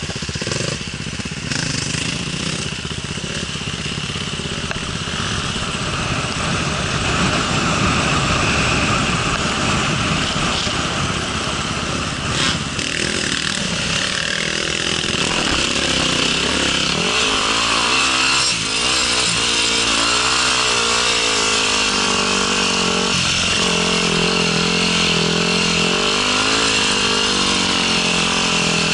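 Dirt bike engine heard from the rider's own bike, running under throttle over a rough trail and rising and falling in pitch as the throttle opens and closes. For the first half it is largely buried under wind and rumble noise; past the halfway point the engine note comes through clearly.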